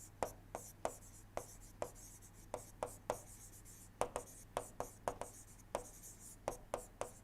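Writing by hand: a run of short, sharp ticks and scratches at an uneven pace as words are written out.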